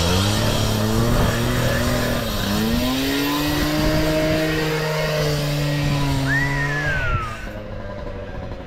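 A small gas engine on a power tool revs up and runs at high speed. Its pitch dips and climbs again about two seconds in, then it drops off suddenly about seven seconds in.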